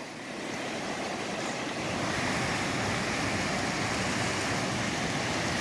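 Fast, flood-swollen river rushing over a waterfall: a steady wash of water noise that grows a little louder over the first couple of seconds, then holds.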